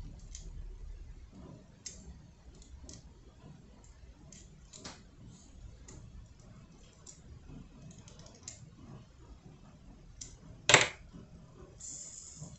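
Sparse small clicks of fingerboard hardware being handled as a lock nut is fitted by hand onto a truck axle to hold a wheel, with one sharper, louder click near the end.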